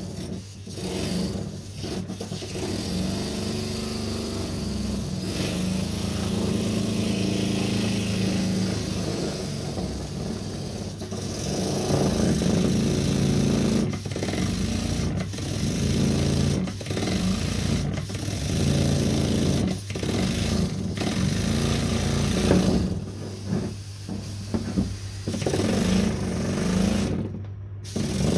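Small single-cylinder model steam engine running fast and steadily, a busy mechanical hum with a hiss, with a few brief dips in the sound.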